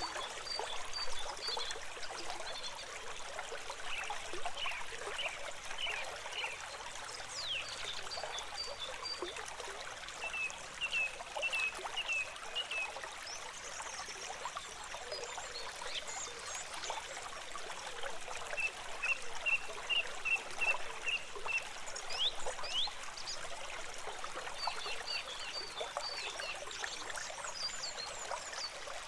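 Water trickling and flowing in a small stream, steady throughout. Over it, several runs of short, evenly spaced high chirps from small animals come and go.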